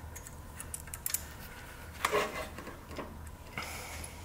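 Small socket ratchet clicking in short irregular spurts, with light metal clinks of tools and hardware, as a nut is worked on the engine. A low steady hum lies underneath.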